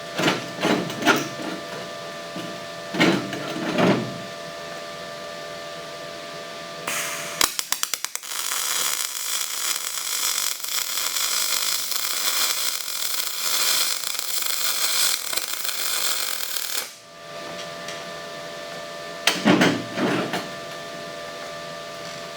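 Wire-feed welding arc crackling and hissing for about ten seconds, starting with a quick run of clicks as the arc strikes. Short bursts of metal clattering come before it and again near the end.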